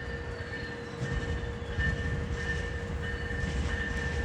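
A train rolling along the tracks, its low rumble growing louder about a second in, with thin steady high tones over it.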